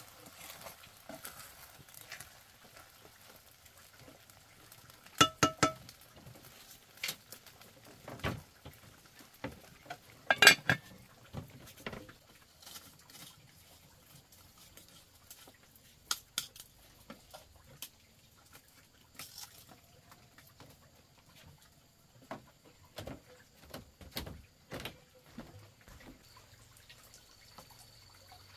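Scattered knocks and clinks of objects being handled, with two loud clusters of ringing clinks about five and ten seconds in, like metal or crockery struck together.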